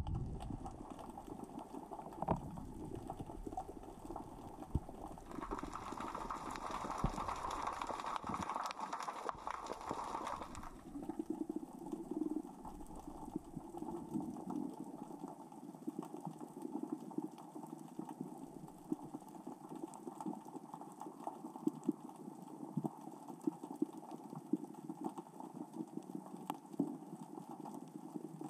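Continuous underwater crackling and clicking of small rocks rolling across the sea floor as the current and tide move them. From about five to ten seconds in a louder hiss rises over the clicking.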